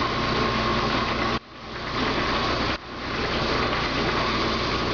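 Belt-driven machine-shop machinery running with a steady mechanical whir, a constant low hum and a thin steady whine. The sound drops away sharply twice, about a second and a half in and again near three seconds, and swells back each time.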